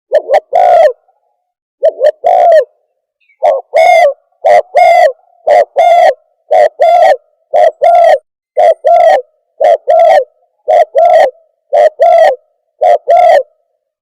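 Spotted dove (terkukur) lure call: loud cooing repeated in pairs, a short note then a longer one, about once a second.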